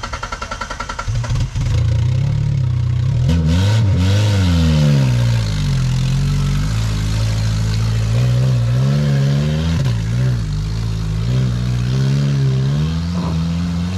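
An off-road 4x4's starter cranks for about a second before the engine catches. The engine then revs up and down repeatedly, its pitch rising and falling several times.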